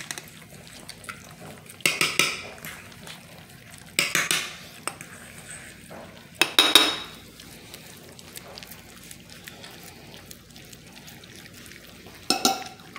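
Basset hound puppies eating soft mush from a stainless steel pan: short bursts of wet smacking and lapping with the pan clinking, four times.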